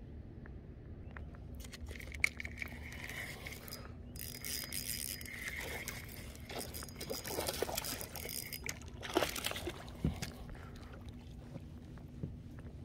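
Water splashing and trickling, with scattered small clicks and knocks, busiest through the middle of the stretch.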